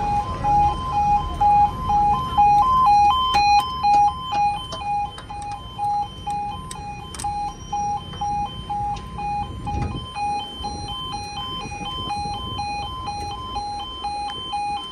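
Railway level crossing warning alarm sounding, two tones alternating steadily: the signal that a train is approaching and the barriers are down.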